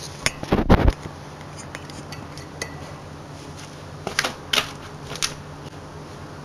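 Handling noise from a camera being set down on the ground: a cluster of loud knocks and clatters in the first second, then a few lighter clicks about four to five seconds in, over a steady low hum.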